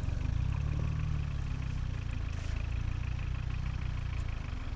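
Motor vehicle engine running steadily at low revs, a low, even hum.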